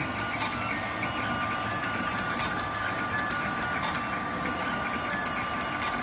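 Automatic wire cutting and stripping machine running: a steady whine with quick, slightly irregular clicks a few times a second as it feeds, cuts and strips cable.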